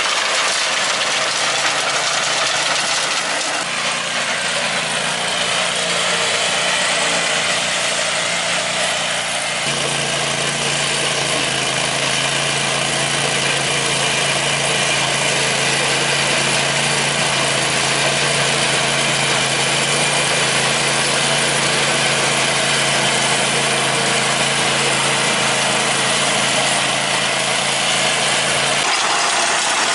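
Simplicity garden tractor's engine running steadily under load as it drives a rear-mounted rotary tiller through the soil. About ten seconds in, the engine hum shifts to a stronger, steadier low note.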